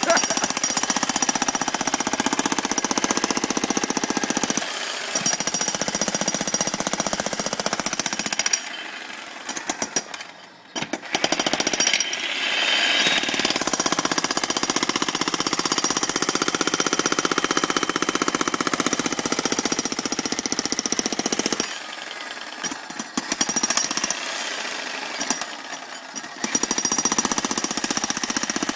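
Jackhammer breaking concrete in long runs of rapid, steady hammering. It stops twice for a few seconds, about nine seconds in and again about two-thirds of the way through, with a few short bursts during the second stop.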